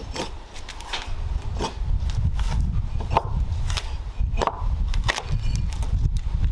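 Bark being scraped and pried off the live edge of a freshly milled wooden slab with a hand tool: a string of irregular cracking scrapes, roughly one every half second to a second.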